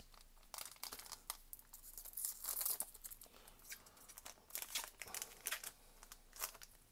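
Foil trading-card booster pack being torn open at its top seal and crinkled in the hands: a run of sharp crackles, densest and loudest about two seconds in.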